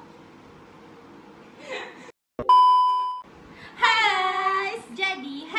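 A single steady electronic beep, about two and a half seconds in and lasting under a second, dropped in as an editing effect right after a brief cut to silence. About a second later a woman's voice rises in a long, high, held call.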